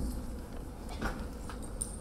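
A few soft footsteps on a wooden stage floor, over a steady low hum of the hall.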